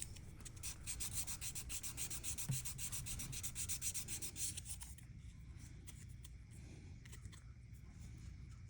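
Rapid back-and-forth rubbing strokes of a hand tool on a plastic model kit part, dying down to a few light strokes about five seconds in.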